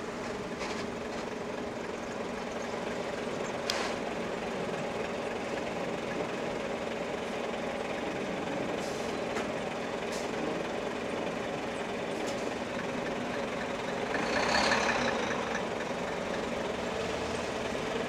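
Steady running sound of a Jōban Line E531 series electric train travelling at speed, mixed with road traffic. About fourteen and a half seconds in, a nearby vehicle passes and the sound briefly grows louder.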